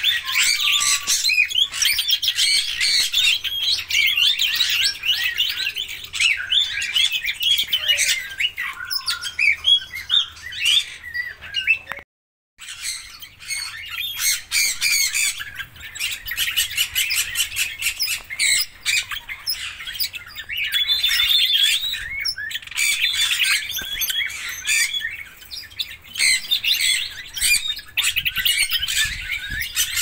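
Red-rumped parrots chattering in a cage: a dense, continuous run of quick high chirps and squawks, broken by a brief gap about twelve seconds in.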